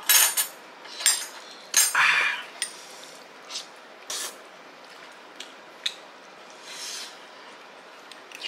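A metal spoon and chopsticks clinking and scraping on ceramic plates and bowls as braised chicken is served. Scattered short clicks and scrapes, the loudest about two seconds in.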